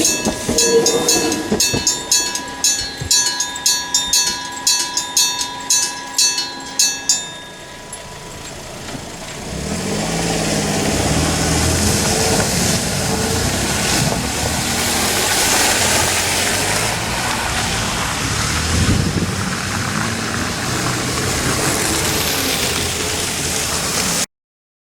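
Electric bell at a level crossing, its electromagnetic hammer striking the bell about twice a second. It stops about seven seconds in. After a short lull, a vehicle runs by with a steady engine rumble.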